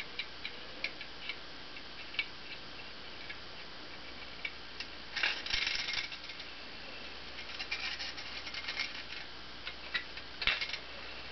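Antique Lehmann tinplate rooster-and-rabbit flywheel toy clicking and rattling, light tinny ticks at first, then three bursts of quick rattling, the loudest about halfway through.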